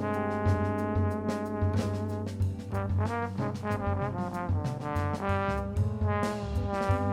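Background music: a horn melody playing sustained, changing notes over a bass line and drums with a steady beat.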